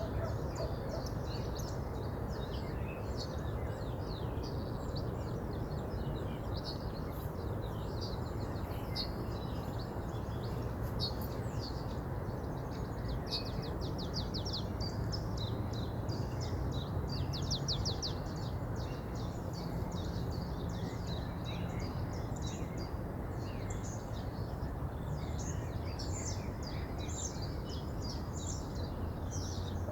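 Steady rush of a flowing river with songbirds chirping and singing over it; around the middle one bird gives a rapid trill lasting a few seconds.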